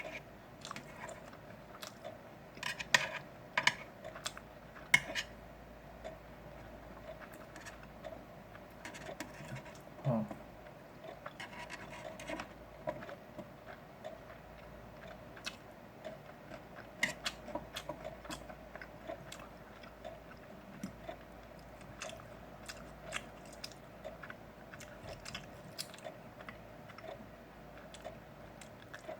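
A person chewing and biting grilled pork belly close to the microphone, with scattered short sharp clicks throughout, over a steady faint hum.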